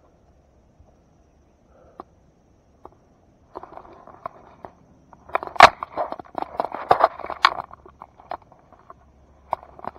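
Footsteps through grass and vegetation with close rustling and scraping at the microphone. It is quiet for the first few seconds, then a dense run of sharp crackles and rustles starts a little past halfway and dies down near the end.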